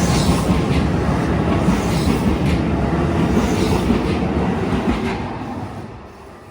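A Keikyu electric train passing close by, its wheels running loudly over the rails in a steady rumble that fades away about five to six seconds in as the train moves off.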